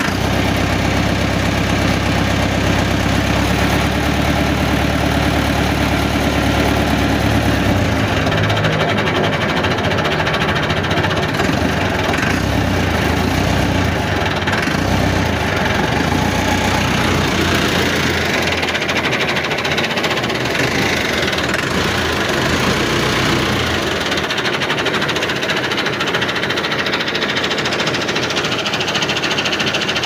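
An engine running steadily, strongest in the first eight seconds, then fainter and more uneven.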